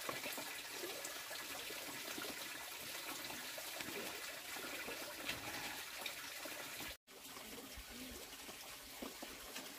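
Water splashing and trickling in a plastic basin as a plucked chicken is rinsed by hand, with a brief dropout to silence about seven seconds in.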